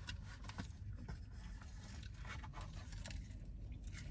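Faint scattered clicks and scrapes of people eating and handling food at a table, over a low steady hum.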